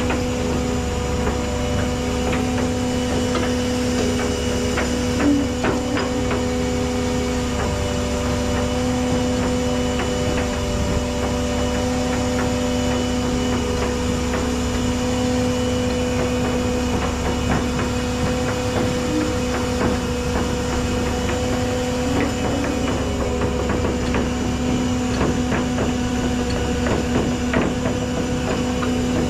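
Rollback tow truck's winch pulling a rolling tool chest up the steel deck, with the truck's engine running in a steady, unchanging hum under it. Scattered sharp clanks from the chain and the tool chest's casters on the deck plate.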